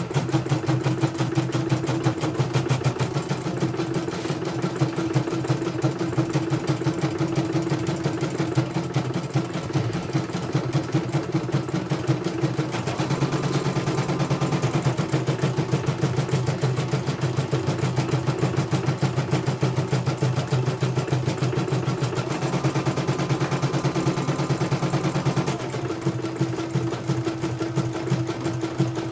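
Elnoss computerised embroidery machine stitching a design: the needle goes up and down in a rapid, even rhythm over a steady motor hum, a little brighter through the middle stretch. It runs smoothly, with no sign of the bobbin-case jumping fault it was brought in for.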